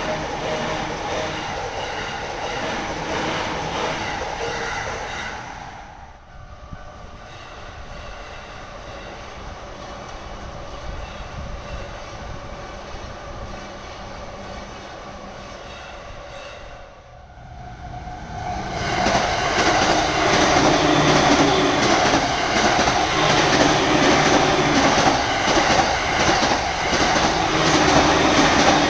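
JR electric trains passing over a level crossing: a train going by, a quieter stretch, then a louder train passing through the last third.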